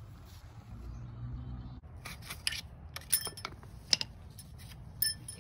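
Sharp metallic clinks and taps of a hand tool working at the front of a Honda B-series engine, several in the second half, as the old front main seal is pried out.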